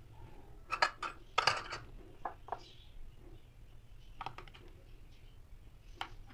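Small metal cookie cutters clinking and tapping as they are handled and pressed through thick dough onto a wooden board: a cluster of short clicks about a second in, a few more around four seconds in, and one near the end.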